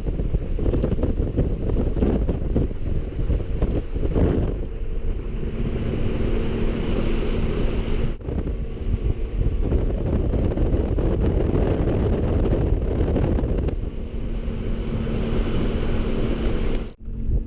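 A boat running under way on a four-stroke Yamaha 250 outboard: heavy wind buffeting the microphone over water rushing past the hull, with a steady engine hum underneath. The sound drops out briefly about eight seconds in and again near the end.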